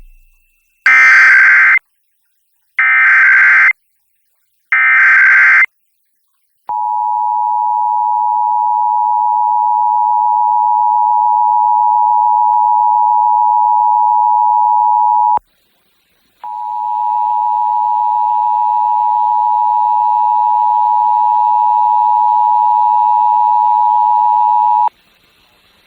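Emergency Alert System test on FM radio. It opens with three short screeching bursts of SAME header data. The two-tone EAS attention signal (853 and 960 Hz) then sounds steadily for about nine seconds, breaks off for a second, and sounds again for about eight seconds with a faint hiss behind it.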